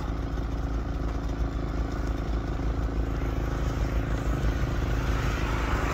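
Snowmobile engines running: a steady engine note throughout, with a snowmobile coming up the trail and getting louder near the end.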